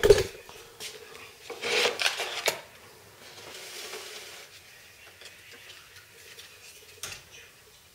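Hand-work on an RC jet model's landing-gear door linkage being adjusted: a loud knock at the start, a scraping, rubbing handling noise with clicks about two seconds in, then softer rustling and a single click near the end.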